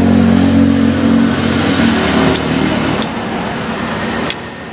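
A vehicle engine running steadily, fading out about a second and a half in, followed by a few sharp clicks.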